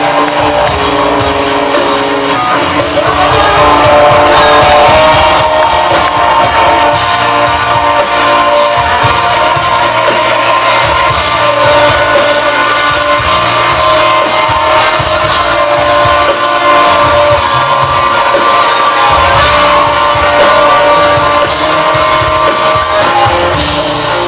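Live rock band playing a loud, steady groove with electric guitars, bass and drums, heard from among the audience in a large venue.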